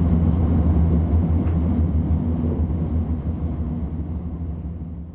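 Tohoku Shinkansen train's running noise heard from inside the passenger car: a steady low rumble that gradually fades away in the second half.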